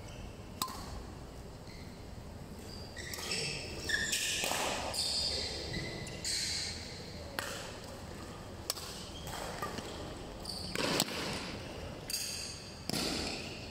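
A badminton rally: sharp hits of racket strings on a shuttlecock, spaced a second or more apart, the loudest about eleven seconds in, with the players' footwork scuffing on the court between hits.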